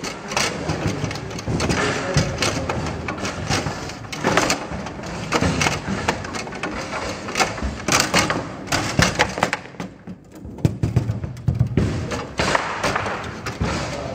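Table football being played hard: the ball cracking against the figures and the table walls, and the rods knocking, in an irregular run of sharp clacks and thuds, with a brief lull about ten seconds in.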